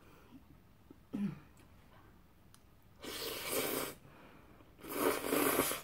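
A person breathes out hard twice, each a breathy puff of air lasting about a second, the second a little louder, after a short low murmur about a second in.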